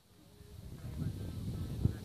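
Wind buffeting the microphone: a low rumble that builds about half a second in, with a sharper gust-like thump near the end.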